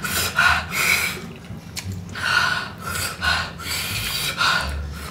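Several people taking a quick series of sharp, hissing breaths in and out through the mouth, gasping from the burn of extremely spicy nuclear fire noodles.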